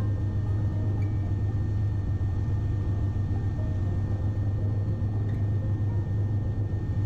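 A Bell 407 helicopter in steady flight: the constant low drone of its four-blade rotor and Rolls-Royce 250 turboshaft, with faint steady high tones above it.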